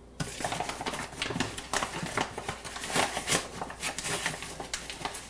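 Paper flour bag rustling and crinkling as flour is scooped out of it with a measuring cup, a dense run of irregular small scrapes and clicks that starts a moment in and goes on almost to the end.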